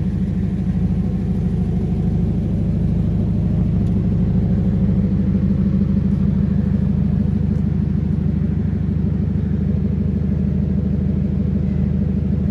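Scion FR-S's flat-four engine idling steadily.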